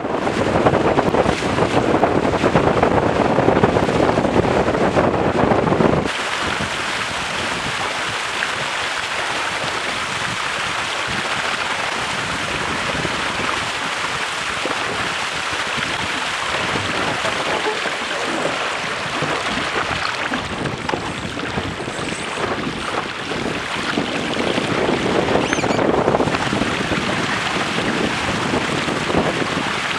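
Wind buffeting a boat-mounted camera's microphone over the rush and splash of water along the hulls of a Weta trimaran sailing fast. The noise is heavier and louder for the first six seconds, then settles to a steadier hiss.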